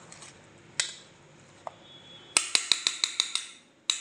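Metal spoon clinking against a steel bowl while stirring chopped cucumber: a few separate clinks, then a quick run of clinks in the second half.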